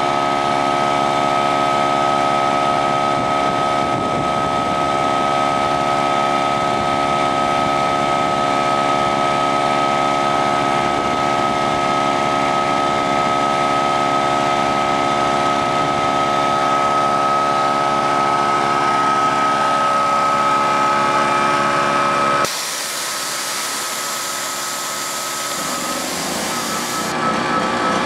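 Portable gasoline generator and an electric air compressor running together, with a steady machine drone and a high whine. Near the end a loud hiss suddenly takes over for a few seconds, and then the running carries on at a different pitch.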